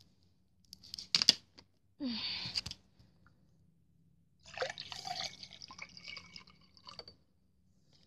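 Juice poured into a glass, splashing and gurgling for about two and a half seconds, starting about four and a half seconds in. Before it come a sharp click and a short handling noise.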